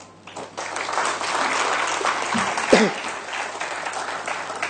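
Audience applauding, many people clapping together, starting about half a second in and carrying on steadily. One short voice cuts through about halfway.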